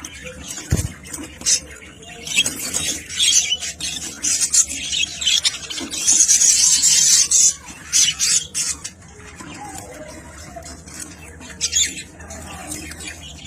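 A flock of budgerigars chattering and squawking, busiest and loudest for several seconds in the middle. A brief low thump about a second in.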